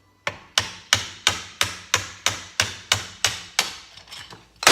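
Hammer tapping a wrist pin out of a piston from a Polaris Sportsman 800 engine: about eleven steady, even taps at roughly three a second. Then come a few lighter taps and one hard strike near the end.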